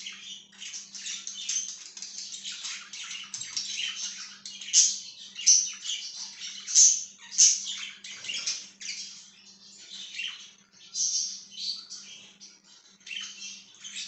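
A flock of budgerigars chirping and chattering: a continuous stream of short, high warbled calls, with louder squawks scattered through.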